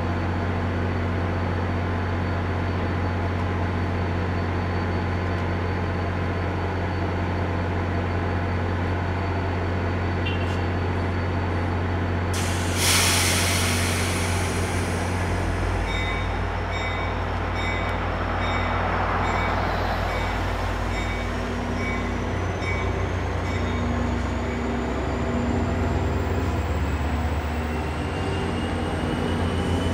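Diesel locomotive running steadily, with a sudden loud air-brake hiss about twelve seconds in. Soon after, a railroad crossing bell starts ringing in even strokes, while a slowly rising whine builds near the end as the train moves.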